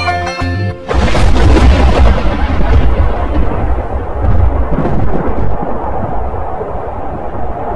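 A loud crack of thunder breaks about a second in, followed by a long rolling rumble that slowly dies away.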